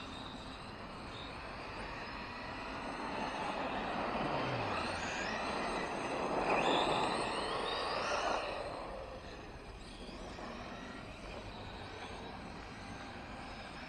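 Electric RC trucks running on a dirt track: motor whine rising and falling with tyre noise on the dirt. The sound swells as a truck passes close, loudest around seven seconds in, then falls away.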